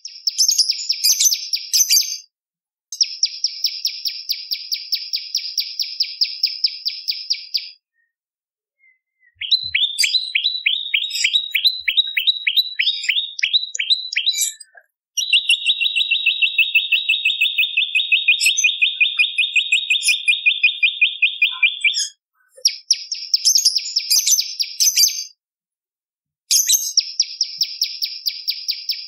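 Prenjak lumut song: rapid, high-pitched trills of repeated notes in bursts of a few seconds, broken by short pauses. About ten seconds in comes a run of quick downward-sweeping chirps, about three a second, then a long, faster trill held for about seven seconds.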